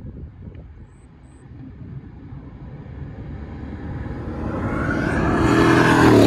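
Mercedes-Benz E63 AMG V8 at full throttle approaching and passing close by, its engine and tyre noise building steadily for several seconds to a loud peak, then cutting off suddenly near the end.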